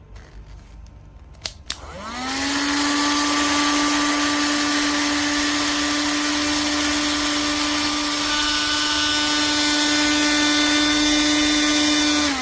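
A couple of switch clicks, then a handheld USB vacuum cleaner's motor spins up to a steady high whine with rushing air hiss. A few higher tones join partway through, and the motor is switched off near the end.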